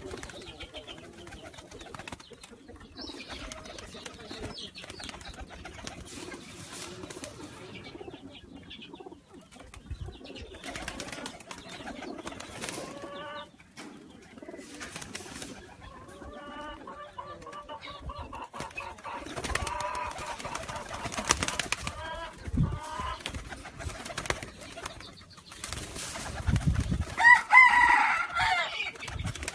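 Pigeons cooing in their loft, with repeated calls and frequent short noises of wings flapping. A louder, higher bird call stands out near the end.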